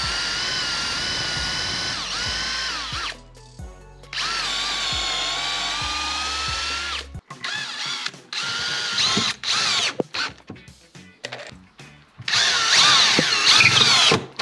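Electric drill boring pilot holes into wood: two long runs whose motor whine sags as the bit bites, then a string of short stop-start bursts with wavering pitch as screws are driven in.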